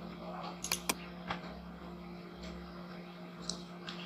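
A few sharp computer mouse clicks, two in quick succession about a second in and another shortly after, with fainter ticks later, over a steady low hum.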